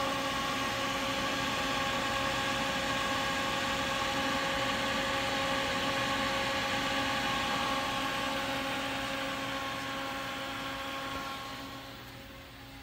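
Steady hum and whir with several steady tones from a Haas CNC machine's open control cabinet, the machine powered up. It fades near the end.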